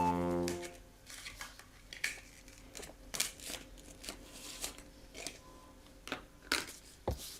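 Plastic toy food pieces being handled and cut apart: a scattering of light clicks and short rasping tears, a few a second at most.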